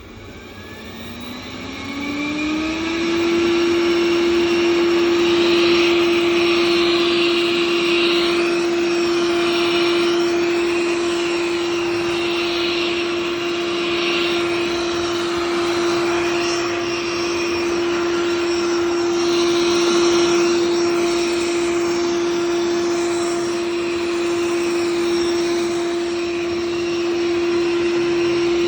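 Xiaomi robot vacuum's motor spinning up with a rising whine over the first few seconds, then running loud and steady, a constant whine over a rushing hiss.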